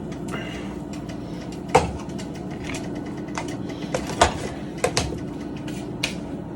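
Knife scraping as butter is spread on a sandwich in a frying pan, with a few sharp clicks and taps of utensil on pan, over a steady low hum.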